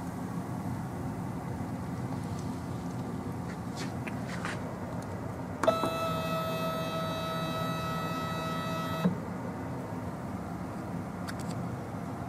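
Metallographic sectioning saw's motorised table moving: a steady electric-motor whine for about three and a half seconds, starting and stopping with a click, over a steady low machine hum.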